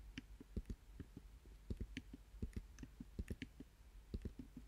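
Light, irregular clicks of a computer keyboard and mouse, a few a second, as letters are typed into spreadsheet cells.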